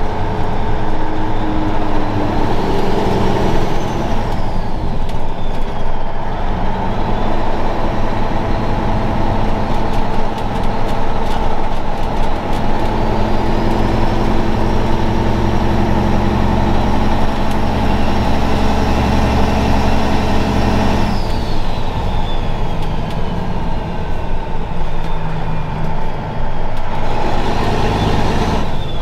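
Straight-piped Caterpillar 3406E straight-six diesel truck engine pulling hard under a heavy load, with a turbo whine over the exhaust note. About two-thirds of the way through, the engine note drops off sharply and the whine falls away, as for a gear shift, then the engine pulls again.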